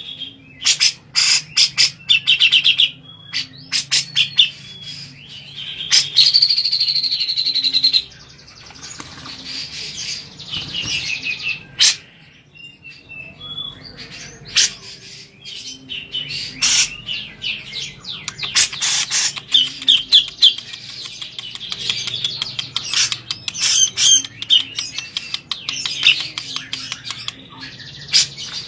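Grey-cheeked bulbul (cucak jenggot) chattering loudly, with rapid trills and harsh notes in quick bursts. The calling eases for a few seconds about a third of the way in, then comes back dense and busy.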